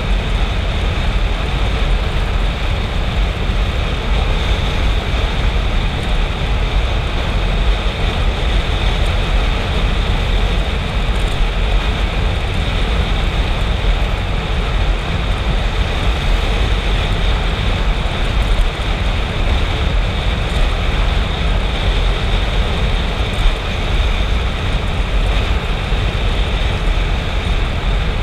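Motorcycle riding steadily at speed: a continuous rush of wind on the microphone mixed with engine and tyre noise, with no pauses or changes.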